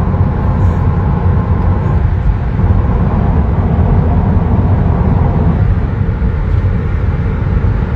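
Steady road and tyre noise with wind rush inside a Tesla electric car's cabin while it cruises at motorway speed.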